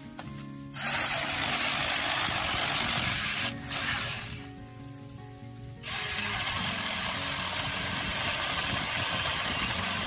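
Small 4-inch cordless electric chainsaw running and cutting through a tree limb, a steady buzzing hiss in two spells: about a second in until near four seconds, then again from about six seconds on. Background music plays underneath.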